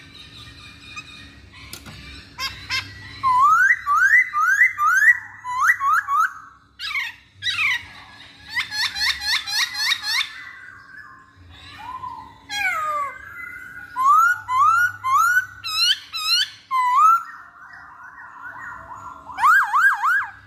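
Black-throated laughingthrush singing: runs of loud rising whistled notes, about three a second, broken by short pauses, with quick higher chattering notes mixed in.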